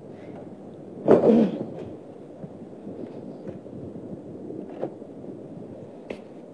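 Quiet room tone with a short vocal sound about a second in, then a few faint clicks.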